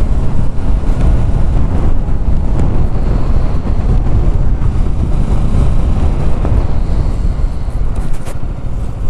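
Wind buffeting the microphone of a rider on a moving Bajaj Pulsar NS200 motorcycle, with the bike's engine and road noise underneath: a steady low rumble.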